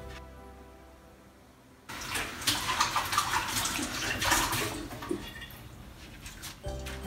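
A toddler sucking and licking her fingers: a crackly mouth noise that starts about two seconds in and lasts about three seconds.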